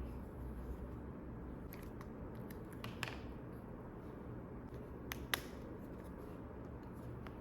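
A few sharp snips of scissors cutting paper, one about three seconds in and two close together just after five seconds, over a low steady hum.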